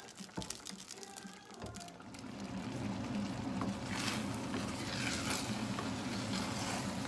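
Wooden spoon stirring thick risotto with chicken and mushrooms in a stainless steel pot, with brief scraping sounds around the middle, over a steady low rumble that starts about two seconds in.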